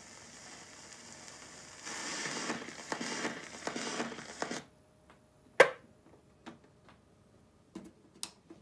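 Stylus hiss and crackle from the Columbia GP-17 record player after the music has ended; about two seconds in, a louder scratchy crackle through its speaker as the tonearm is handled and lifted, cutting off suddenly. Then one sharp loud click and a few lighter clicks as the arm is set back and the front knob turned.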